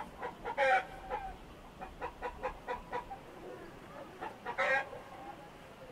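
Chickens clucking in a steady run of short clucks, about three or four a second, with two louder, higher calls: one under a second in and one near the end.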